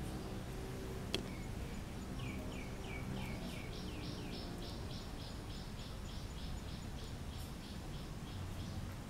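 A bird calling: a long run of quick, evenly repeated chirps, about five a second, starting about two seconds in and stopping near the end, over steady outdoor background noise. A single sharp click comes about a second in.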